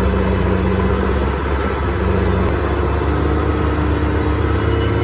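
Heavy diesel engine running steadily under load, from the logging truck or the dozer working in mud.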